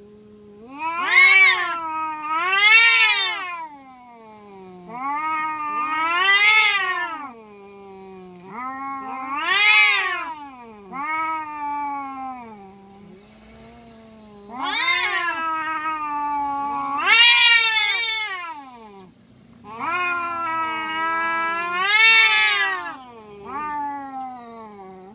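Two domestic cats in a face-off, yowling at each other: long, wavering caterwauls that swell up in pitch to loud wails and sink back to a low moan, over and over with only short breaks. This is the threat yowling of an aggressive standoff that comes before a cat fight.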